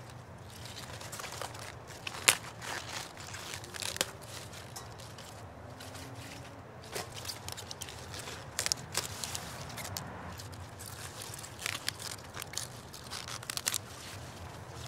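Romaine lettuce leaves being snapped off the plant by hand: irregular crisp cracks as the leaf stems break, with leaf rustling between them. The loudest snap comes about two seconds in.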